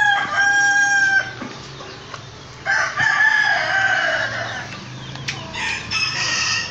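A rooster crowing: three long crows, the first ending about a second in, the second starting near three seconds in, the third near six seconds.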